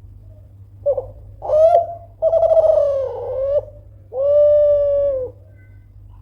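Kelantan-strain spotted dove (derkuku / tekukur Kelantan) giving one loud cooing phrase of four notes. It opens with a short note and a brief rising note, then a long wavering coo, and ends on a long steady note.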